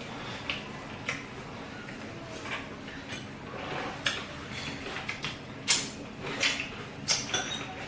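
Cutlery clinking and scraping against plates during eating, a run of scattered light clicks that become sharper and more frequent in the second half.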